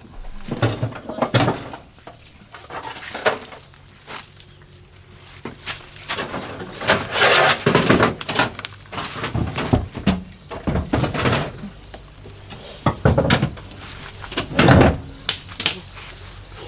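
Irregular knocks and thuds with short rustling, scraping bursts, the loudest of them about halfway through and a sharp one near the end.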